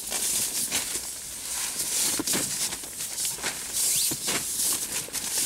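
Nylon tent fabric and a sleeping pad rustling and crinkling as a person crawls into a small tent, in quick irregular scuffs throughout.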